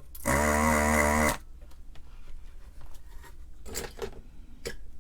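A desoldering gun's vacuum pump runs for about a second, a steady motor whine, sucking solder from a capacitor's pad. Light clicks and taps of handling the board follow.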